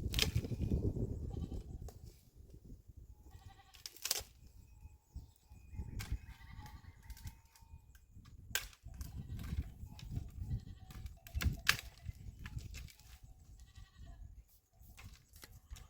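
Goats bleating several times, with a few sharp clicks and a low rumble underneath.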